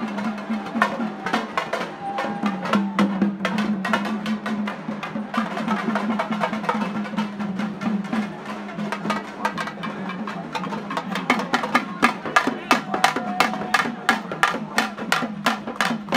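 Drums beating fast over a steady low drone, with some voices in the mix. The beats come quicker and louder over the last few seconds.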